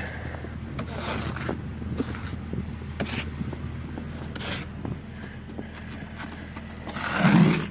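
Snow brush sweeping snow off a vehicle's body: a series of short scraping strokes over a steady low hum.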